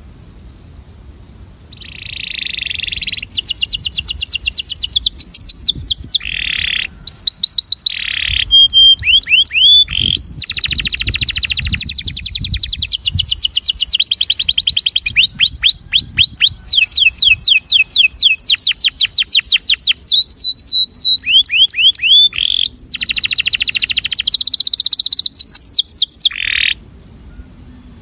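Male canary singing one long song of fast trills and rapidly repeated sweeping notes, starting about two seconds in and stopping shortly before the end, over a faint steady high hiss.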